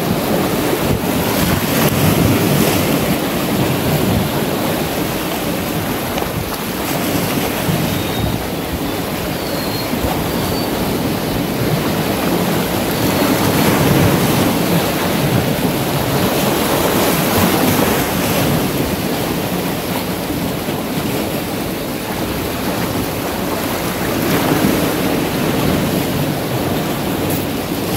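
Sea surf washing in and breaking against shore boulders, a continuous rush that swells and eases every few seconds as the waves come in.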